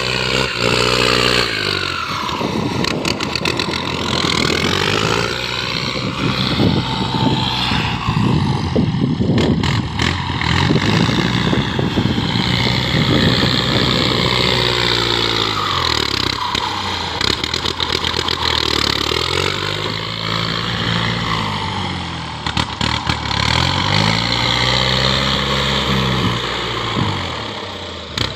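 An engine running and being revved up and down several times, its pitch rising and falling, with a rougher, noisier stretch through the first half.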